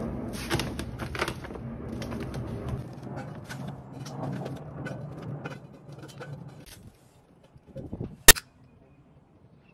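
Charcoal poured from a bag into a small metal kettle grill, the pieces clattering and rattling, then shifted about with metal tongs; the rattling stops about seven seconds in. A single sharp click follows about a second later.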